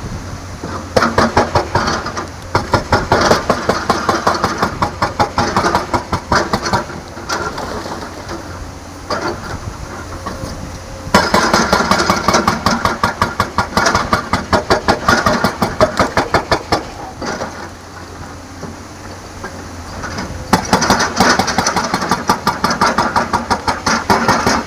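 Tracked excavator's diesel engine working hard, with three loud stretches of quick, evenly repeating pulses between quieter steady running.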